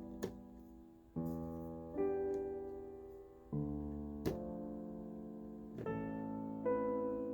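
Slow solo piano background music, with chords struck every second or two. Two sharp clicks cut through it, one just after the start and one about four seconds in.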